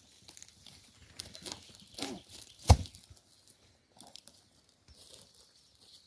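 Soil and roots tearing and crackling as a heavy old telecom block is wrenched out of the ground, with several sharp knocks, the loudest nearly three seconds in.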